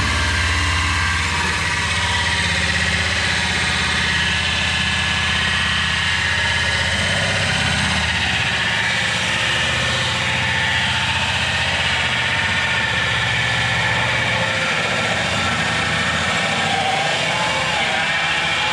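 Cordless drill running steadily with a hole saw grinding into the drywall ceiling, its motor note shifting a little as it bears down. The cut is slow because the hole saw isn't carbide.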